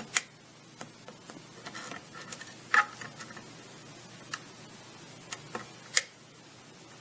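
Hook pick working the pins of a six-pin pin-tumbler lock under tension: a few sharp, irregular metallic clicks with faint scraping between, the loudest about three seconds in and again near the end. The clicks are pins setting at the shear line and the plug giving small rotations, during single-pin picking into a false set.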